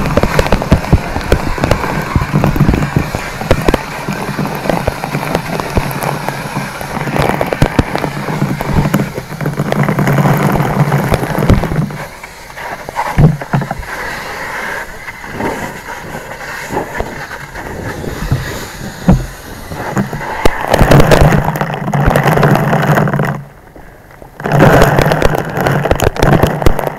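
Structure fire burning in a fully involved garage, crackling and popping densely and loudly, over a steady low rushing noise that drops out about twelve seconds in, returns, and cuts out again briefly near the end.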